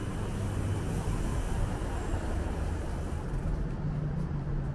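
Steady city traffic noise with a low engine hum; the high hiss thins out about three seconds in.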